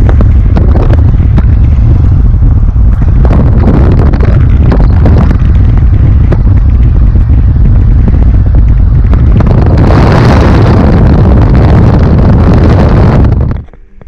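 Wind buffeting the microphone and road noise in a moving car with the window open, a heavy steady rumble. A louder rushing swell comes about ten seconds in, and the sound cuts off abruptly near the end.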